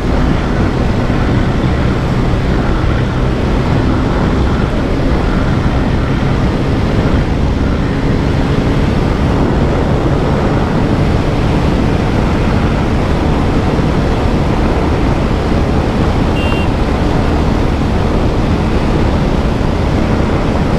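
Bajaj Pulsar 125's single-cylinder engine held flat out near its top speed of about 116 km/h, a steady low hum almost buried under heavy, constant wind rush on the microphone.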